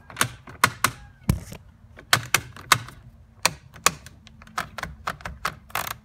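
A quick, irregular run of sharp clicks and knocks, about twenty in all, with one duller thump about a second in.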